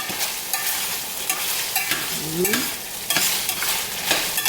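Chicken frying in a pan on high heat, sizzling steadily, with repeated short scrapes and clicks of a utensil working in the pan.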